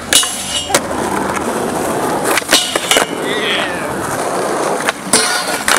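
Skateboard on a flat metal rail and asphalt: a half-second scrape of the board sliding the rail just after the start, a few sharp board clacks around two and a half to three seconds in, and another short scrape near the end, over the steady rolling of the wheels.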